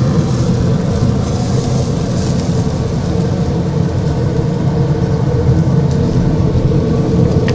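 Steady, loud motor-like running hum with a low drone, like an engine idling close by.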